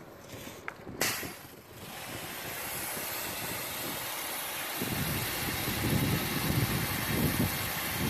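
Pressure-washer foam wand spraying the steel track of a bulldozer: a sudden burst as the trigger opens about a second in, then a steady hiss of spray. The hiss grows louder and fuller about five seconds in.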